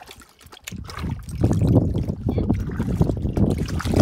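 Dog lapping water from a stock tank, a quick run of splashy laps that starts about a second in.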